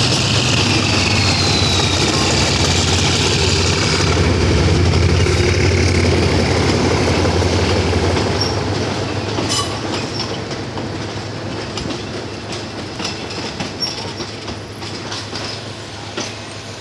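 A GEK-class GE diesel-electric locomotive runs loudly past, hauling coaches while shunting, with a high whine falling in pitch over the first few seconds. After about eight seconds the engine fades, leaving the clicking of the coaches' wheels over the rail joints.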